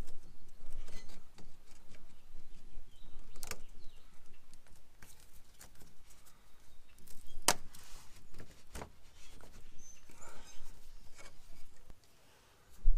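Metal hand tools clinking and scraping against metal parts, with three sharp clinks about three and a half, seven and a half and nine seconds in.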